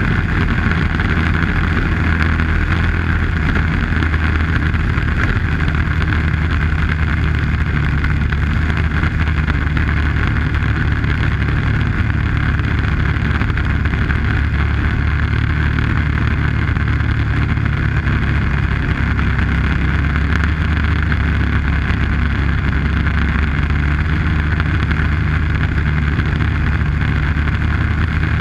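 Arctic Cat snowmobile engine running steadily at cruising speed, heard from on board while riding along a snowy trail.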